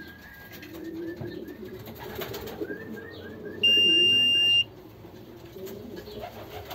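Pigeons cooing in the loft, with runs of quick high chirps. A little over halfway in, a loud one-second beep from the electronic pigeon-race clock sounds, the signal that it has registered a returning bird.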